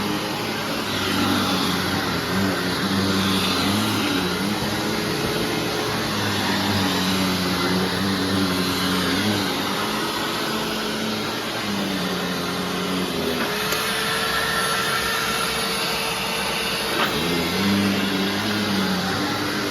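2001 Hoover WindTunnel Self-Propelled Ultra (U6430-900) upright vacuum running steadily, its motor's hum shifting in pitch now and then. From about two-thirds of the way in, the pitch rises to a higher, steadier note for a few seconds, then drops back.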